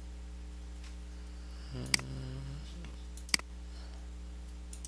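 Two sharp computer mouse clicks, about a second and a half apart, over a steady low electrical hum. A short hesitant 'mm' from a voice comes just before the first click.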